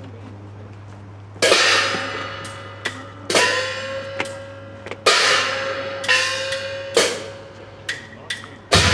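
Festival float percussion: heavy gong and cymbal crashes, each left to ring, with lighter strikes between. The crashes start about a second and a half in and come roughly every two seconds.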